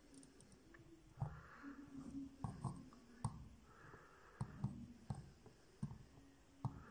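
Faint clicks and scratching from a soldering iron tip working solder joints on a copper-pad perforated board, with a few short, soft hisses between the clicks.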